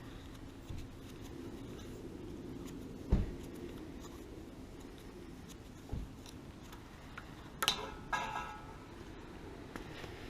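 A low steady hum with two dull knocks, about three and six seconds in, then a short clatter of ringing, metallic-sounding hits about eight seconds in.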